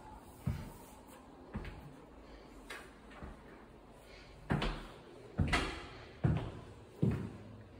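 Footsteps walking on a hard plank floor, roughly one step a second, the steps heavier in the second half.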